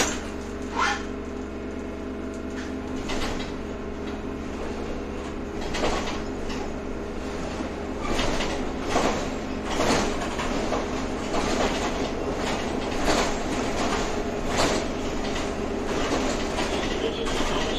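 Ride inside a moving electric city tram or trolleybus: a steady electric drive hum under recurring knocks and rattles from the body and fittings, growing busier about eight seconds in.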